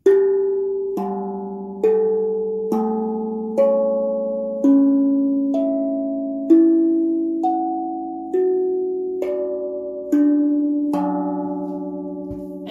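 A 13-inch, 15-note carbon-steel tongue drum struck with the rounded ends of its mallets, one tongue after another, with the sound-hole plug out. There are thirteen clear bell-like notes about one a second, each at a different pitch and ringing on under the next.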